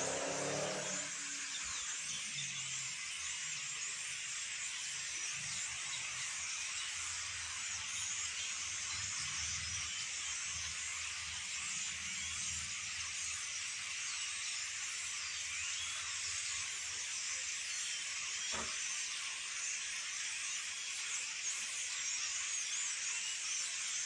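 A large flock of birds calling together: a dense, continuous high-pitched chatter of many overlapping chirps. One faint knock about three-quarters of the way through.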